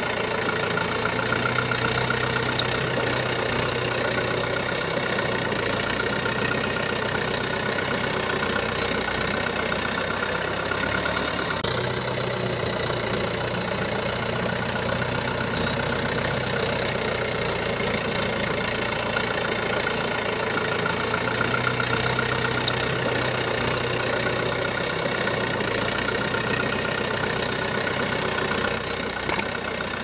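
A tractor engine sound running steadily at idle, laid over as a repeating loop whose low hum swells and fades about every ten seconds. A few clicks come near the end.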